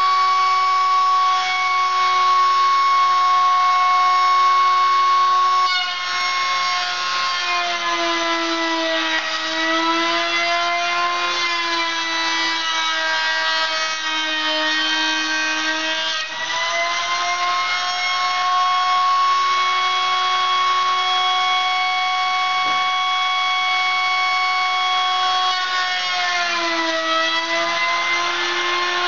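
Electric trimmer (compact router) running at full speed with a steady high whine. Its pitch sags and more cutting noise joins in while a board is fed into the cutter, from about 7 to 16 seconds in and again near the end.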